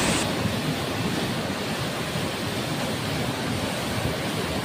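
A swollen, muddy floodwater river rushing past, making a steady, dense noise of churning water.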